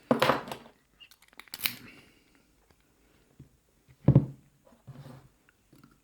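Small metal parts of a laminated padlock being handled during disassembly: scattered clicks and scrapes, with a heavier knock about four seconds in.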